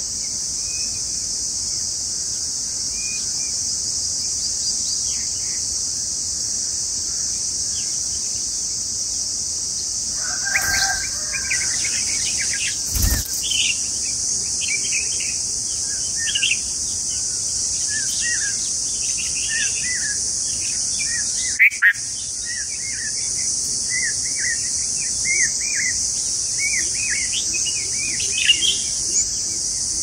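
Red-vented bulbul nestlings giving many short, quick begging chirps, sparse at first and thickening from about a third of the way in, over a steady high insect drone. A sharp knock comes a little before halfway, and a louder double knock about two-thirds in.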